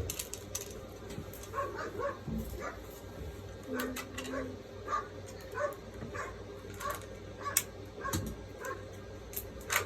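A string of short, pitched animal calls, roughly one or two a second, over a steady low hum, with a few sharp clicks.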